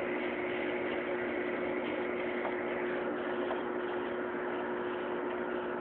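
Microwave oven running: a steady hum with one constant tone held throughout.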